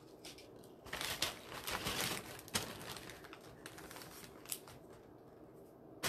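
Crinkling and rustling of bags of craft supplies being rummaged through and items pulled out, in uneven bursts with a few light clicks.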